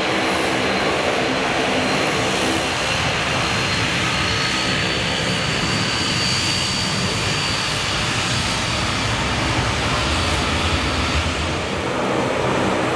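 Airbus A320-214's twin CFM56 turbofan engines at takeoff thrust during the takeoff roll, liftoff and initial climb: a steady, loud jet noise with a thin high fan whine that edges up in pitch midway, and a deeper rumble that grows in the last few seconds.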